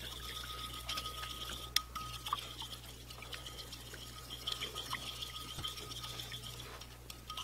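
Metal spoon stirring borax powder into water in a glass bowl: soft scraping with scattered light clinks against the glass, the borax not fully dissolving. A faint steady low hum runs underneath.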